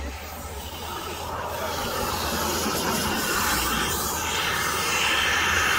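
Radio-controlled model airplane's engine running, a steady rushing noise that grows gradually louder.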